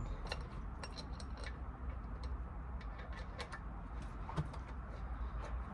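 Scattered light clicks and taps at irregular intervals from hands working on an outboard motor's cover panel, over a steady low hum.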